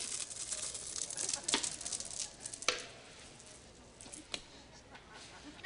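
Small objects being handled: rustling and light clicking, busiest in the first three seconds, with a few sharp clicks standing out.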